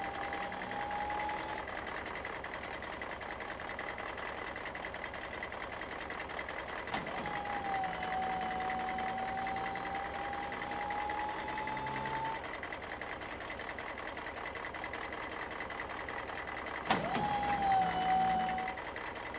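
A motor-like whine that comes three times, each time rising slowly in pitch, with a sharp click at the start of the second and third.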